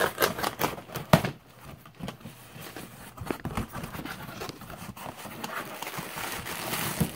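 Cardboard box being opened by hand: a run of sharp knocks and scrapes as the flaps are pulled apart, the loudest about a second in, then rustling of cardboard and plastic air-pillow packing.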